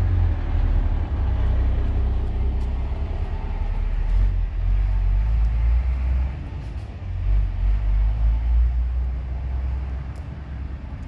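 Loud, steady low rumble with a hiss of outdoor noise above it, wavering in strength and easing a little about six seconds in.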